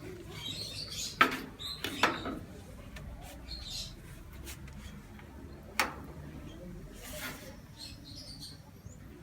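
Gaggia GX Visacrem lever espresso machine being handled: three sharp metal clicks or knocks, two close together and one a few seconds later, with short light squeaks between them, over a low steady hum.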